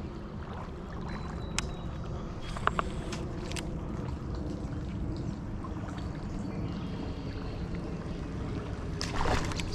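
Creek water running steadily with a low gurgle. A few sharp clicks come in the first few seconds, and there is a short splash near the end.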